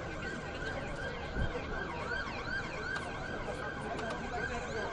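Emergency-vehicle siren yelping, a quick rising-and-falling wail repeating about two to three times a second, over steady background hubbub.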